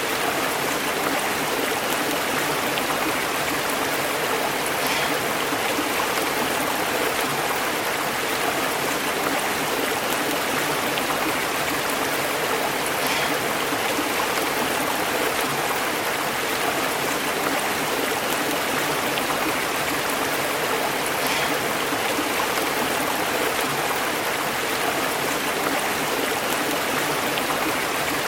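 A stream burbling and bubbling over rocks, a steady rush of flowing water.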